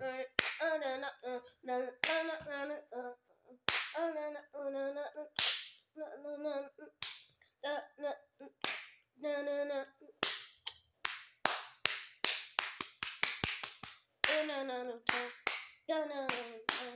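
A high-pitched voice singing or vocalising without clear words, broken up by sharp hand claps, with a quick run of claps in the middle.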